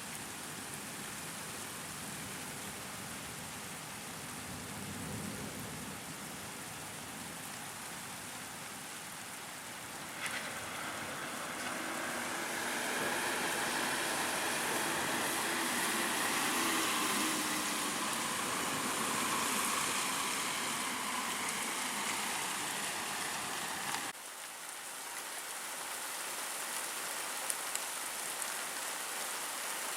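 Steady rain falling in a thunderstorm, an even hiss of drops. It jumps abruptly louder about ten seconds in and drops back just as suddenly later on.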